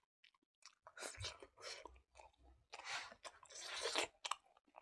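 A person chewing a mouthful of rice and smoked pork, in uneven bursts with short pauses between them.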